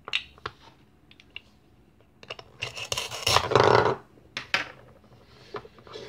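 Velcro tearing as the two halves of a plastic toy pumpkin are pulled apart: a crackly rip about a second long near the middle, with a few sharp plastic clicks and taps before and after.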